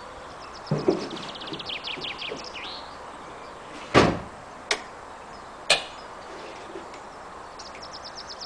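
Birds chirping in quick trilled phrases. A few sharp knocks cut through, the loudest a deep thump about four seconds in.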